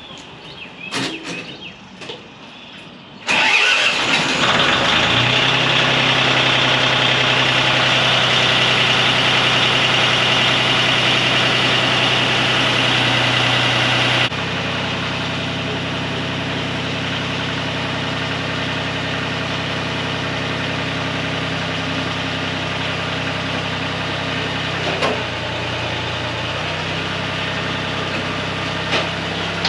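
Farm tractor engine starting from cold after a few clicks, catching about three seconds in and running at raised speed, then settling to a steady idle about 14 seconds in to warm up.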